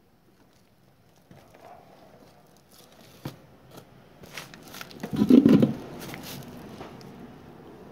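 Handling noise: scattered clicks and rustling, with a louder burst of knocking and rustling about five seconds in.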